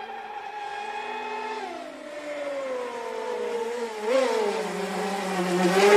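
Motor of a Norbert Kulmus HPR 135 radio-controlled racing boat running at speed on the water. Its pitch falls over the first few seconds, then climbs sharply near the end as the boat speeds up and the sound gets louder.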